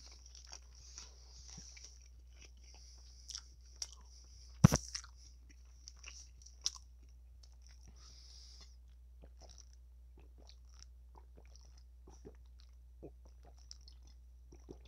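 Close-miked chewing of leafy salad: crisp crunches and wet mouth clicks, with one sharp knock about four and a half seconds in as the loudest sound. In the second half the sounds thin out to small scattered clicks as he drinks from a plastic bottle.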